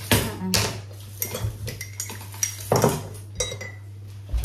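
Kitchen knife, chopping board and dishes clattering: half a dozen irregular knocks and clinks as onions are cut on a plastic chopping board.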